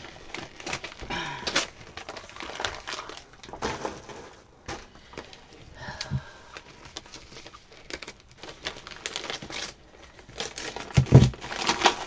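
Glossy wrapping paper and packing tape crinkling and rustling as a taped mail package is handled and torn open, with a louder thump of the package against the desk near the end.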